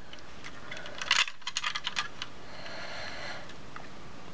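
Plastic Lego pieces clicking under fingers as a hidden compartment panel on a Lego sand skiff model is opened: a quick cluster of small clicks between about one and two seconds in, then a soft rustle.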